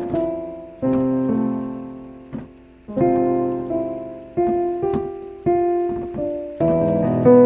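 Solo piano improvisation: slow chords and melody notes struck every second or two, each left to ring and fade before the next.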